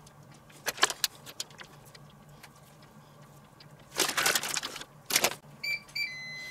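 Plastic food packaging crinkling and rustling in bursts, then near the end a few short electronic beeps and a longer beep from a Tefal OptiGrill, its signal that preheating is done and food can go on.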